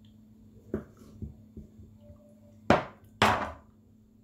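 Kitchen knife cutting boiled potatoes in half on a wooden chopping board: a few light knocks, then two louder, sharp strikes of the blade on the board about half a second apart.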